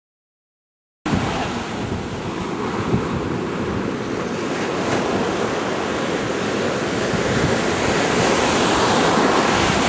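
Silent for about a second, then surf washing onto a sandy beach cuts in suddenly, with wind buffeting the microphone in a steady rumble.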